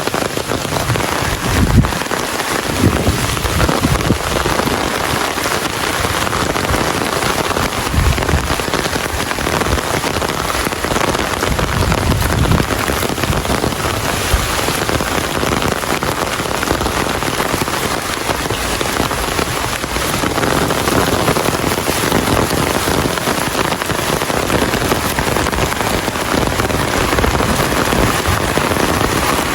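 Steady rain falling, an even dense hiss, with a few brief low rumbles in the first dozen seconds.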